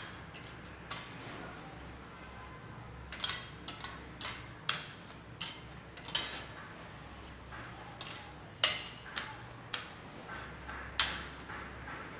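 Steel sewing pins clicking against a metal pin tin as they are picked out and handled: a dozen or so sharp, light ticks at uneven intervals, over a faint low hum.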